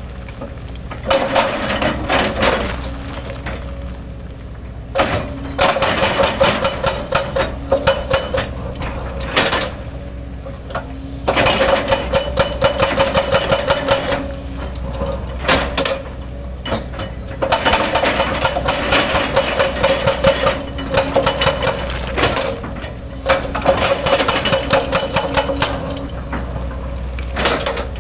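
Hydraulic excavator digging into a rocky cut slope: its diesel engine runs steadily while the bucket scrapes and breaks rock and soil, in about five spells of dense clattering and grinding a few seconds long, with short pauses between.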